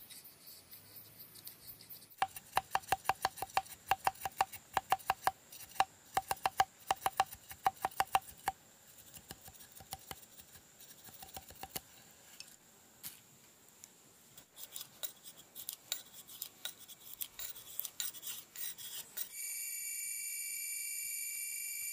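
A large machete-style knife working a green bamboo section: a quick run of sharp ringing clicks, about three a second, for several seconds, then softer, scattered scraping as thin strips are shaved off. Near the end a steady high drone of forest insects comes in.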